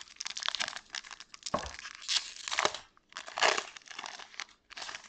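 Foil wrapper of a small Pokémon trading-card booster pack crinkling and tearing as it is pulled open by hand, in a run of crackling bursts, loudest a little past two seconds and again about three and a half seconds in.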